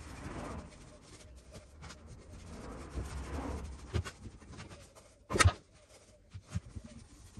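Handling sounds on a wooden workbench: soft rubbing and scraping, a click about four seconds in, then a single sharp knock a little after five seconds, the loudest sound, and a smaller tap about a second later.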